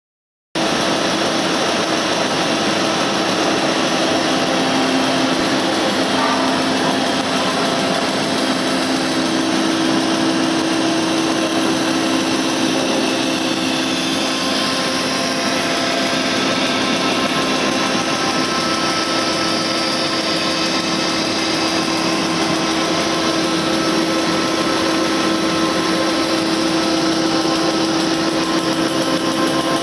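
Stack-type flexographic printing machine running, feeding a roll of woven polypropylene fabric through its print units: a steady mechanical whir and hum with several held tones.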